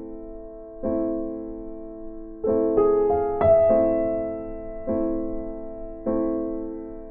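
Background music: slow piano chords, each struck and left to fade, with a quicker run of notes about three seconds in.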